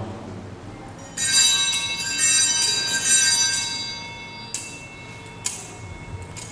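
Altar bells rung at the elevation of the chalice after the consecration: a cluster of high bells shaken in several quick bursts from about a second in, ringing out over a couple of seconds, followed by two sharp clicks.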